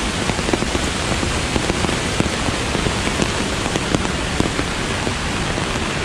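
Kegon Falls rushing: a loud, steady wash of falling water with no let-up.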